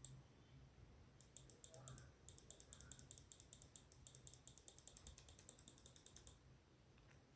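Faint, quick, even clicking of a computer keyboard, in a short run about a second in and a longer run that stops about six seconds in.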